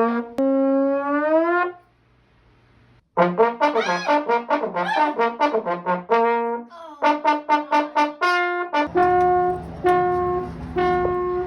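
A brass instrument, trombone-like, plays a held note that bends upward, stops, then after a short gap plays a fast string of short notes with sliding pitch. From about two-thirds of the way in it plays short repeated notes over a steady low rumbling noise.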